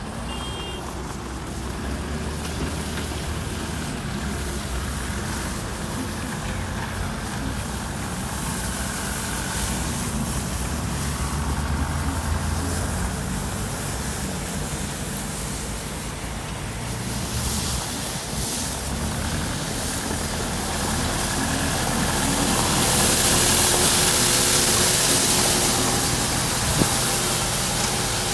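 Compact tractor engine running steadily while its front rotary brush sweeps snow. The sweeping, rushing noise swells and is loudest about four fifths of the way through, as the tractor works close by.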